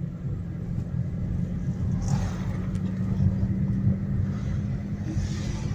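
Car engine hum and road noise heard from inside the closed cabin of a moving car. A wash of noise swells about two seconds in and again near the end.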